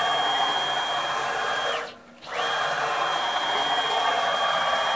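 Stepper motors of a 6040 CNC router's X axis driving the table in a rapid traverse at a newly raised top speed: a steady high-pitched whine. It ramps down and stops about two seconds in, then after a brief pause ramps up and runs again for another fast move.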